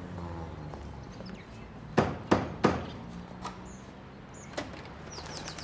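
Three loud knocks on a wooden front door, about a third of a second apart, each with a short ring, while birds chirp faintly.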